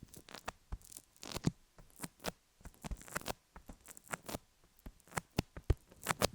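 Sticky Vaseline being worked over a rhinestone-covered dummy-head microphone: close, irregular tacky clicks and crackles, several each second.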